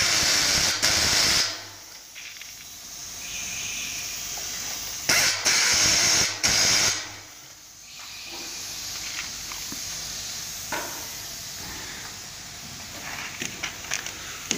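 Power driver spinning bolts into the front fork's triple clamp in two bursts of about two seconds each, the second stopping and starting. A few light clicks of parts being handled near the end.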